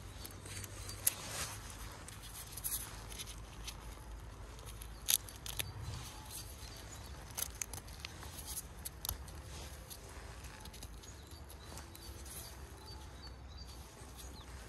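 Oyster mushrooms being snapped and torn off a log by hand in rubber gloves: scattered sharp snaps with soft tearing and rustling, the loudest snaps about a second in and about five seconds in, over a low steady rumble.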